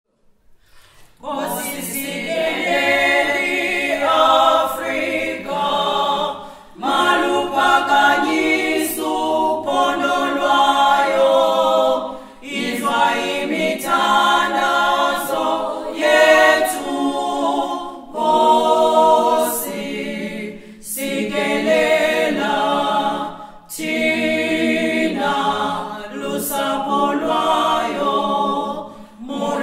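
A choir of mostly women's voices singing a cappella, beginning about a second in and going on in phrases with short breaks between them.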